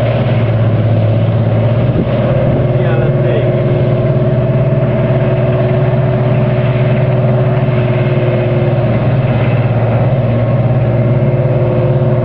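Steady hum of an engine running at constant speed, with an unchanging low drone and a higher steady tone above it.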